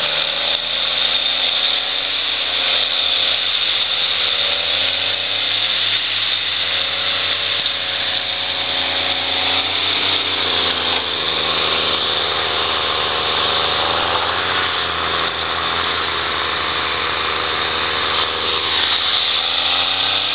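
Diesel engines of two John Deere grapple skidders, the older yellow 748 and the new green 648, working hard under load on a muddy slope, their pitch rising and falling again and again as they rev. A steady high hiss runs underneath.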